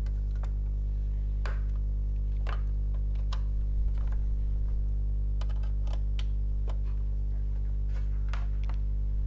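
A steady low electrical hum throughout, with a dozen or so brief scattered clicks and knocks as cables are plugged into the back of a Blu-ray player.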